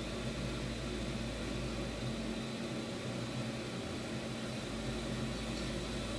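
Steady low hum with an even hiss and a faint high steady tone, unchanging throughout: background machine or electrical noise in the room.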